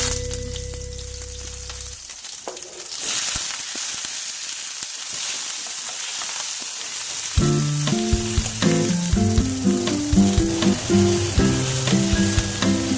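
Food sizzling as it fries in hot oil in a pan, rising in about three seconds in and then going on steadily. Background music returns about halfway through.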